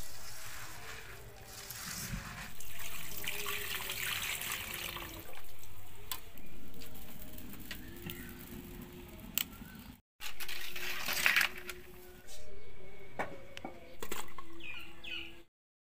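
Water pouring into a metal wok of fried rice, lentils and vegetables for khichuri, in several stretches that each start abruptly and fade.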